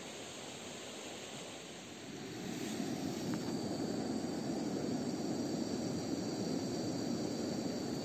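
Camping gas stove burner running under a kettle of tea water, a steady low rushing sound that comes up about two seconds in over a fainter steady hiss.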